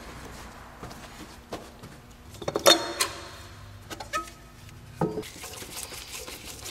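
Clanks and clatters of a round sheet-metal air cleaner housing being handled on top of a carburetor, loudest just under three seconds in with a brief metallic ring, followed by a few lighter knocks.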